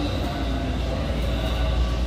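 Tobu 9000-series electric train running, heard inside the car: a heavy steady rumble with the thin whining tones of its traction motors.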